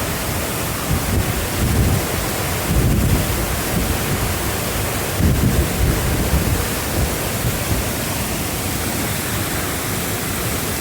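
Waterfall at close range, a steady heavy rush of falling water, with spray and wind off the falls buffeting the phone's microphone in low rumbling gusts about two, three and five seconds in.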